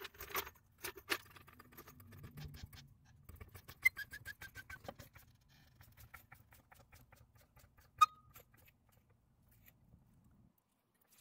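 Metallic clicking and rattling from a floor jack being pumped up under the rear suspension, with a quick run of ticks a few seconds in and a single sharp clink later on.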